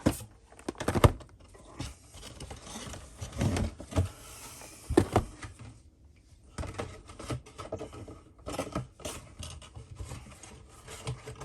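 Cardboard booster boxes being lifted out of a display box and set down: irregular light knocks, taps and cardboard scuffs, a few louder knocks among them.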